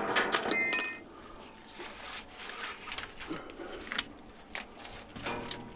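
A sharp metallic clink that rings briefly about half a second in, followed by scattered faint knocks and rattles of metal hardware being handled.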